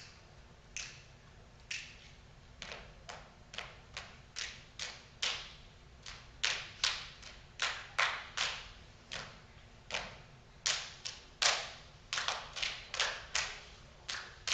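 Body percussion by a group of performers: sharp hand claps and slaps on the body in a syncopated pattern that starts sparse, about one strike a second, and quickens to several strikes a second.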